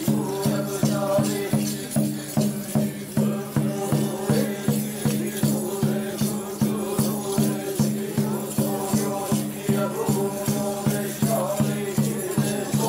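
Group chanting of a Buddhist prayer on one held low pitch, kept to a steady beat of about three strokes a second, as at a goma fire rite.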